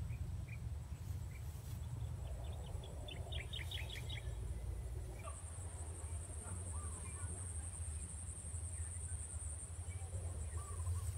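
Open rice-field ambience: a bird gives a quick run of about ten short chirps a few seconds in, with a few faint calls later. Underneath runs a steady high buzz that grows louder from about five seconds in until near the end, over a constant low rumble.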